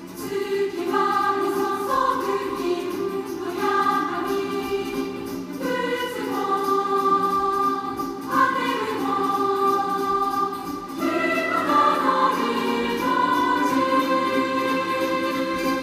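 Slow music of long held, choir-like chords that change every second or two, played through a Toyota Prius's car audio speakers and heard inside the cabin.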